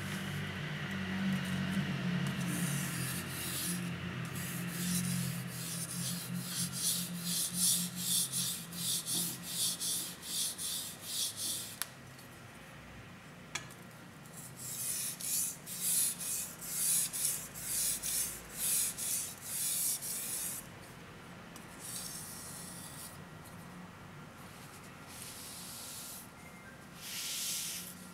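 A 240 mm gyuto kitchen knife blade stroked back and forth on an Okudo suita natural whetstone: steady rhythmic scraping in two long runs with a short break between, then a few shorter passes near the end.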